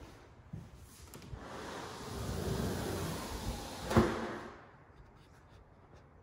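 Sliding barn door rolled along its overhead track, a rumbling slide that builds over a couple of seconds and ends in one sharp knock as the door hits its stop.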